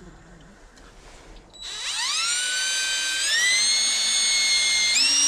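Cordless drill driving a carbide-tipped I-Grip stud into a rubber skid-steer track. Its motor starts with a whine about one and a half seconds in, climbing in pitch as it spins up, then stepping higher twice more as it runs on.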